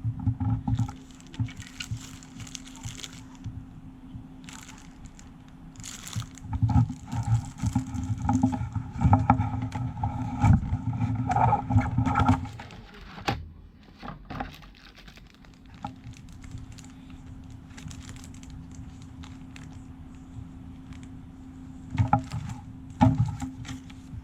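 Hands handling a small plastic USB hub and its packaging: irregular clicks, knocks and rustles, busiest in the middle and again briefly near the end, over a steady low hum.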